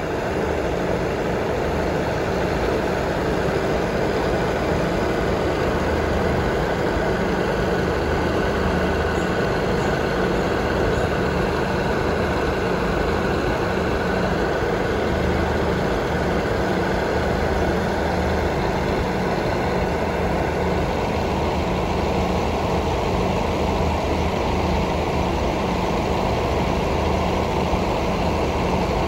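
Diesel railcar engine idling steadily at the platform, a constant low running sound with a faint high whine that fades out about two-thirds of the way through.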